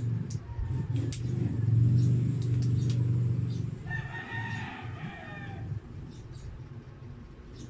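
A rooster crows once in the background, a long call of nearly two seconds starting about four seconds in. Underneath is a low droning hum that is loudest in the first half, with a few sharp clicks.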